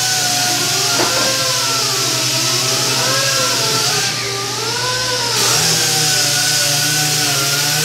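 Workshop machinery running: a steady hiss and hum under several whining tones that rise and fall in pitch.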